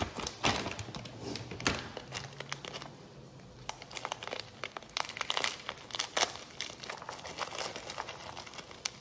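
Thin plastic bag of peeled garlic cloves crinkling as hands open it and work the cloves out of an inner plastic packet, in irregular crackles that are loudest near the start and thin out toward the end.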